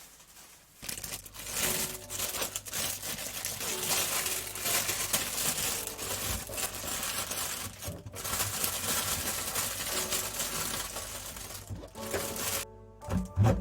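Plastic packaging crinkling and rustling as it is handled, an irregular run of crackles that starts about a second in and stops abruptly shortly before the end.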